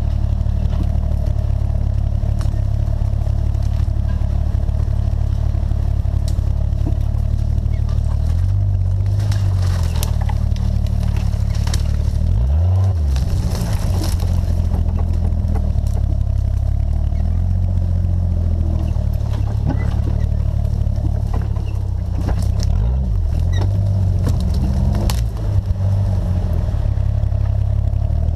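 Jeep engine running at low trail speed, a steady low rumble whose pitch dips and rises briefly about halfway through and again near the end. Scattered clicks and rattles from the vehicle jolting over the rough trail.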